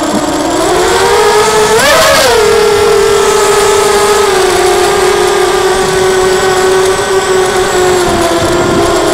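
Lumenier QAV250 mini quadcopter's motors and propellers whining, picked up by its onboard camera in flight. The pitch climbs sharply about two seconds in with a brief rush of noise, then drops back to a steady whine.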